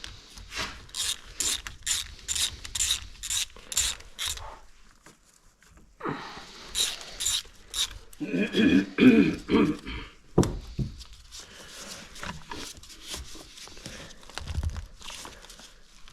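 Socket ratchet clicking in a regular run of about two to three strokes a second as a 5/16 hose clamp screw is backed off. After a pause come a few more clicks, then a loud squeak lasting about two seconds, followed by softer scattered clicks.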